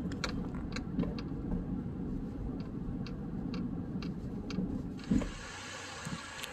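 Car driving over a patched, potholed paved road, heard from inside the cabin: a steady low rumble of tyres and engine, with light, irregular clicks. About five seconds in it cuts to wind outdoors, a steady hiss with low gusts buffeting the microphone.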